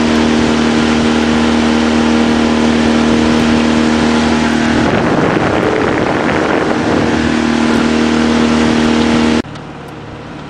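Small boat's outboard motor running steadily at speed, with water and wind rushing past. About nine seconds in, the motor sound drops abruptly to a much quieter, lower hum.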